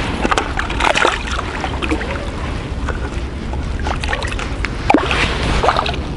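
Water splashing and sloshing in short irregular bursts as a crucian carp goes into a mesh keepnet and the net is lowered back into the pond, over a steady low rumble.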